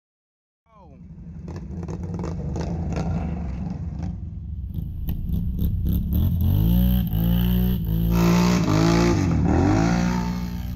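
ATV engine running and revving, its pitch rising and falling over and over as the throttle is worked. It comes in suddenly about a second in and grows louder in the second half.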